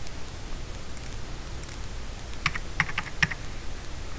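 A short run of computer keyboard keystrokes, about two and a half seconds in, entering a dimension value. A steady low hum runs underneath.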